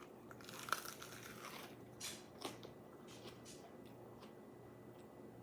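A bite into a lettuce-wrapped burger, with crisp lettuce crunches, loudest just under a second in and again around two seconds. Faint chewing and mouth sounds follow.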